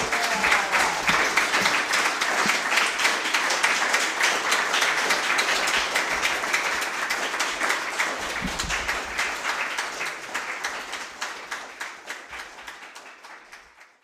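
Audience applauding, a dense patter of many hands clapping that starts at once, holds steady, then dies away over the last few seconds.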